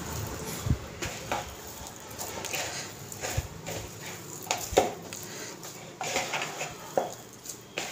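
Hands squeezing and mixing mashed boiled potato and bread in a plastic bowl: irregular squishing with soft knocks against the bowl, the loudest a little before five seconds in.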